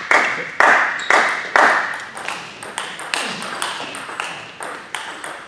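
Table tennis rally: the ball clicking sharply off the rackets and table about twice a second, each hit ringing briefly in the hall's echo.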